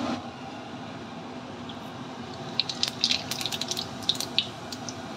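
Hot oil sizzling in a kadhai with spice seeds frying in it for a tempering: a steady hiss, joined by quick sharp crackles and pops from about two and a half seconds in.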